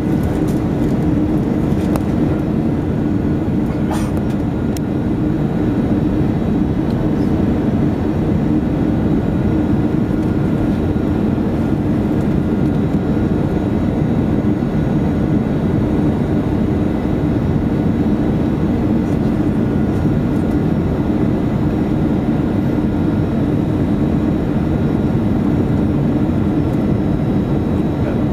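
Steady cabin noise of an Airbus A319 on its descent, heard from a window seat beside the wing engine: a constant low hum of the engine over the rush of air.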